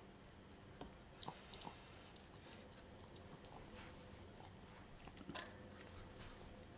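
Near-quiet room with a few faint, short crunches and clicks of a Chihuahua chewing a dry jerky treat, the clearest about a second and a half in and just past five seconds in.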